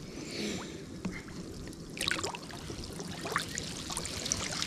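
Water sloshing and trickling with many small splashes, busier from about halfway, as someone wades through it.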